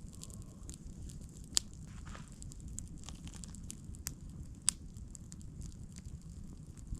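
Small campfire crackling, with scattered ticks and two sharp pops, about one and a half and four and a half seconds in.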